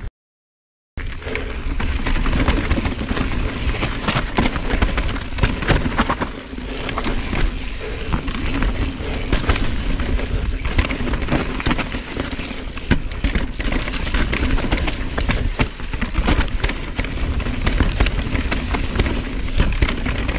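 Mountain bike riding fast down a rough downhill trail: a constant clatter and rattle of tyres, chain and frame over rocks and roots, with wind rumbling on the microphone. It starts about a second in, after a brief silence.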